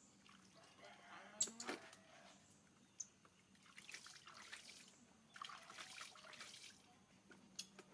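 Faint water sounds, small drips and trickles, with a few light clicks.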